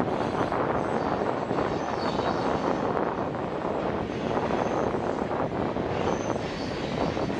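Freight train cars rolling steadily across a long river trestle: a continuous rumble with a few faint, brief high-pitched wheel squeals.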